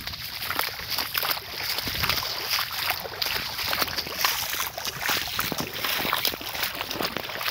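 Feet in sneakers wading through ankle-deep seawater, a run of short sloshing splashes with each step.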